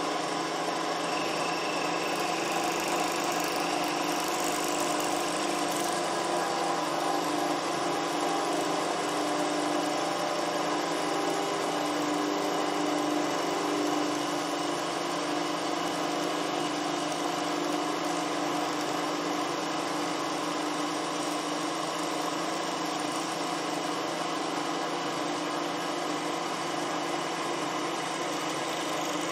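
Milling machine running steadily while a 3 mm carbide end mill cuts a slot into a steel lathe parting blade under flood coolant: an even machine whine with several held tones.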